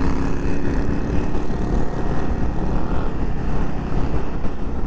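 Bajaj Dominar 400 motorcycle's single-cylinder engine running steadily on the move, under heavy wind noise on the microphone.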